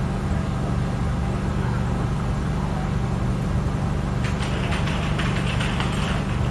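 A steady low hum of an idling engine. From about four seconds in, a run of light clicks and rustling sits on top of it.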